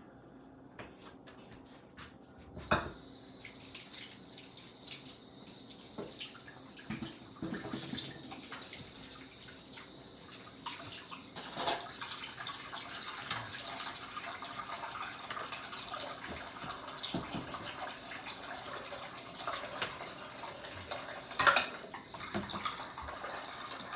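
Kitchen faucet running into a stainless steel sink during washing up, with clinks and knocks of utensils and dishes. The water comes on about a third of the way in, and two sharper knocks stand out over it.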